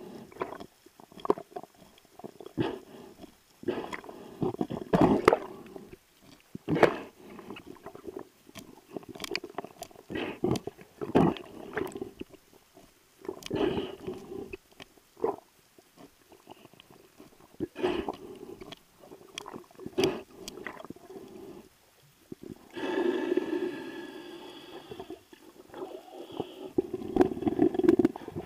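Underwater sound picked up by a camera in its housing: irregular muffled knocks and bumps with gurgling water, and a longer bubbly rush about two-thirds of the way through.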